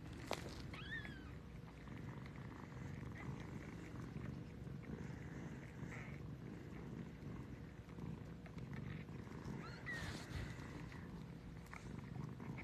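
Siberian mother cat purring steadily while tending her newborn kittens. A couple of faint, short high squeaks come through about a second in and again near ten seconds.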